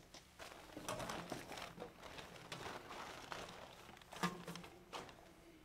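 Plastic shopping bag rustling and crinkling as things are pulled out of it, with small handling knocks. A brief murmur of a voice about four seconds in.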